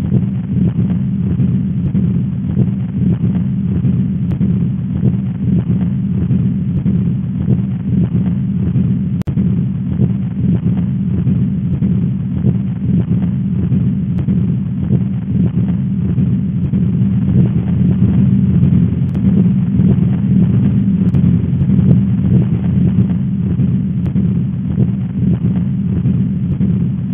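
Heart sounds as heard through a stethoscope: the continuous murmur of a patent ductus arteriosus, a loud low rumble that runs without a gap between beats.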